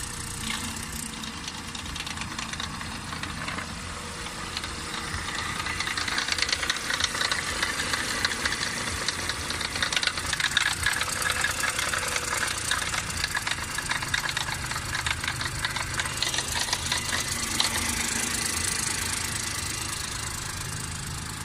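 BMW F20 118i's B38 three-cylinder petrol engine running with a strange noise: a fast, dense ticking over the engine sound, getting louder about six seconds in and easing off near the end.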